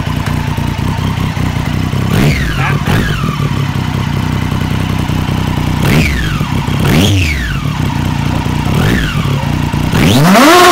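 Triumph Daytona 675R's three-cylinder engine idling and being revved in place: a series of quick throttle blips that rise and drop sharply, then a longer, louder rev near the end.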